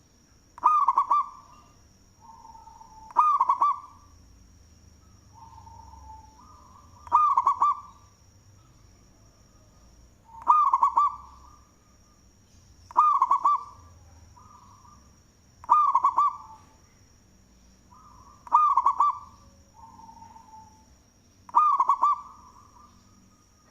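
Zebra dove (perkutut) cooing its song: a loud cooing phrase every two to three seconds, eight in all, with softer coos in between.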